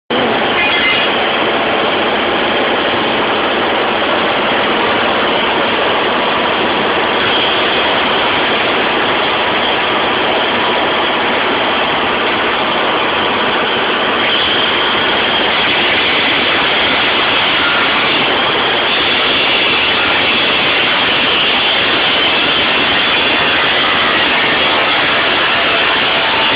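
Electric arc welding on cast iron: a loud, steady hiss that holds at one level throughout.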